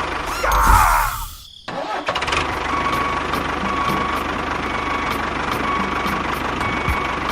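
A short falling whine, then a brief dip about a second and a half in, after which a motor starts and runs steadily, with a faint tone repeating over it about every half second.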